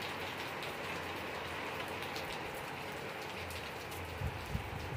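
Heavy rain falling steadily on garden leaves and plants, with scattered ticks of individual drops. A few low thumps come near the end.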